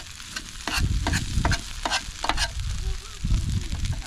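Metal spatula scraping and clacking across a flat-top griddle as a hash of potatoes and eggs is stirred, with a quick series of scrapes over a steady sizzle of frying food.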